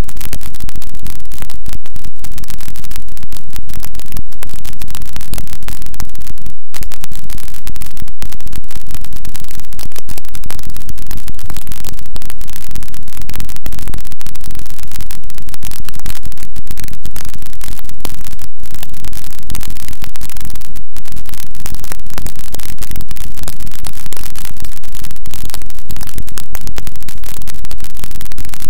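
Harsh noise music: a dense, very loud wall of distorted static, broken by a few split-second dropouts.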